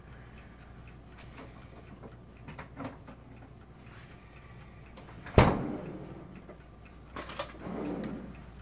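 Kitchen handling noises: a few light clicks and taps, and one sharp knock about five seconds in, with a short ring after it.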